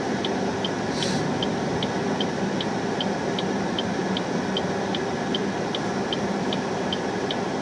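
Car turn-signal indicator clicking steadily, about three clicks a second, over the steady hum of the car's engine and road noise in the cabin.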